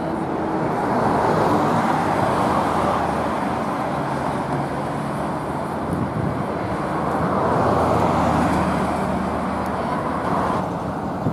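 Road traffic: cars driving past on the street, a steady rush of tyre and engine noise that swells as vehicles go by, once early and again about seven seconds in.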